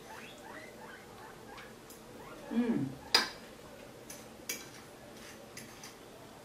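A fork clicking and scraping against a clay plate while eating, one sharper clink about three seconds in and lighter taps after it. A brief low hum, like a tasting 'mm', comes just before the sharp clink.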